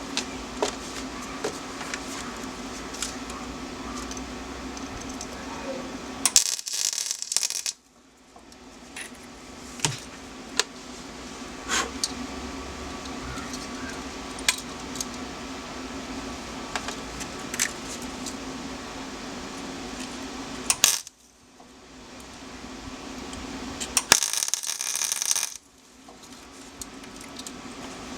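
Small metal parts and tools clinking and tapping, scattered sharp clicks over a steady hum, with two short hissing bursts, one about six seconds in and one near the end.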